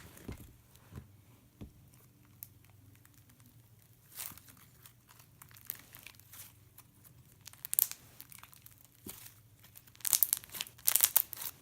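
Plastic crinkling and rustling with scattered small clicks from handling slime containers and packaging, busier and louder near the end.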